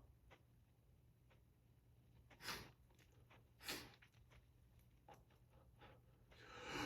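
A person breathing between hay-fever sneezes: two short, sharp sniffs about a second apart, then a louder drawn-out breath near the end.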